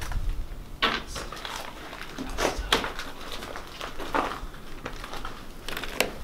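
Irregular footsteps on a debris-strewn wooden floor and stairs, with a sharper knock near the end.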